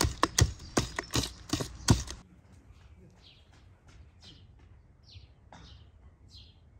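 Rapid knocks of a utensil against a bowl, about three a second, stopping about two seconds in. After that, small birds chirp repeatedly.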